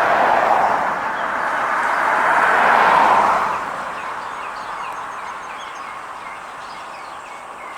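A vehicle passing, its noise swelling to a peak about three seconds in and then fading. Through the second half a small bird repeats short rising chirps, about two a second.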